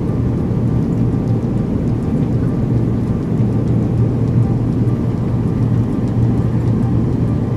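Jet airliner cabin noise in flight: a loud, steady rumble of engines and airflow with an even low hum.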